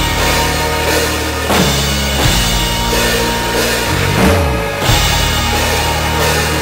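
Acoustic drum kit played hard, with cymbal crashes and bass drum, over a recorded rock song whose sustained low bass and guitar notes change every second or so. A brief swooping low note comes about four seconds in.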